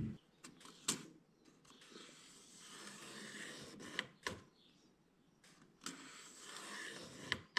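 Pencil scratching along a plywood panel as it is scribed to the camper's curved plywood wall, in two soft strokes, with a few light knocks as the board is handled against the wall.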